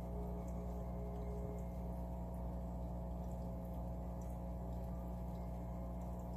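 Steady low hum of a running aquarium pump, with faint water movement in the tank.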